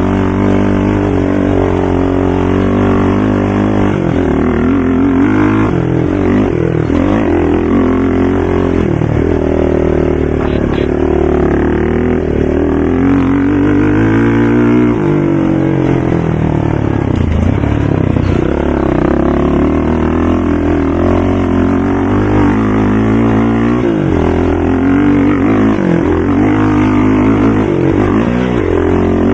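ATV engines running loudly, revving up and down over and over as the throttle opens and closes.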